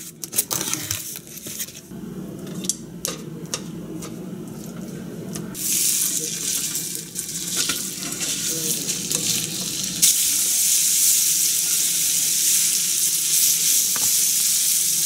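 Ground pork sizzling in hot oil in a non-stick frying pan. The sizzle starts about five seconds in and gets louder about ten seconds in as more meat goes into the pan. Before the sizzle there are scattered clicks and rustles of the meat being pulled from its plastic-wrapped tray.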